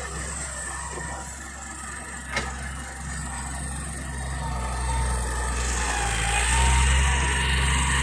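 Diesel engine of a wheeled excavator running as it digs and loads soil, with a tractor idling beside it. The engine note rises and grows louder about six seconds in. A single sharp knock comes about two and a half seconds in.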